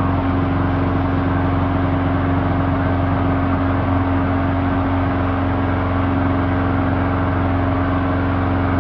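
Scroll saw running steadily at one speed: a loud, even motor hum with the fast rattle of the reciprocating blade.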